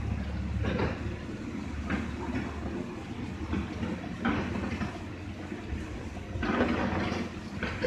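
A long-handled ladle stirring thick chickpea curry in a large aluminium pot: a few separate sloshing, scraping strokes against the pot. Under them a low steady rumble fades out about three seconds in.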